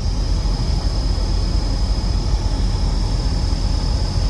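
S197 Ford Mustang cabin blower motor running, a steady rush of air with a thin, steady high-pitched whistle over it. The whistle is the sign of a blower motor on the way out.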